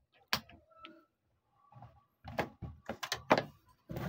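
A sharp click, then a scatter of knocks and clicks from about two seconds in, from hands handling tools and parts on a workbench around an opened amplifier.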